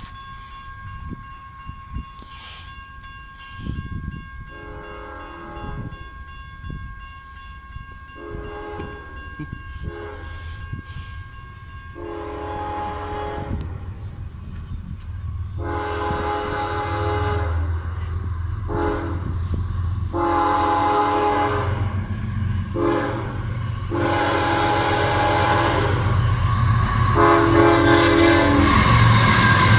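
Diesel freight locomotive approaching and sounding its horn in a series of blasts, the longer ones toward the end. A low engine rumble grows louder under them as it nears.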